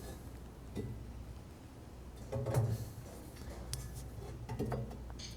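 Steel flame-deflector plate being worked loose inside a steel stove-fireplace's firebox by hand: faint metal scraping with a few light clicks and knocks, the loudest scrape about two and a half seconds in.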